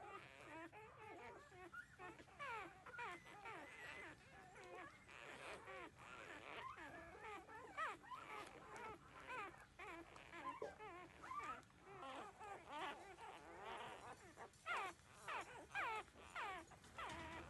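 Several 13-day-old puppies whimpering and squeaking, many short rising and falling cries overlapping one another, a few louder ones near the end.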